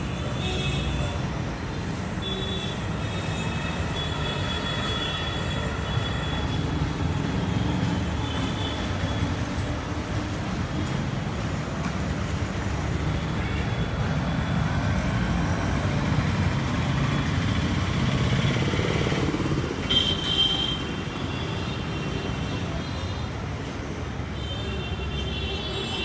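Steady street traffic rumble, with vehicle horns honking now and then, most plainly around twenty seconds in and near the end.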